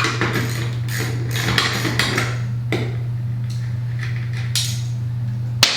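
Scattered clicks and light metallic knocks of ceiling-fan parts and hardware being handled and taken apart, the sharpest one near the end, over a steady low hum.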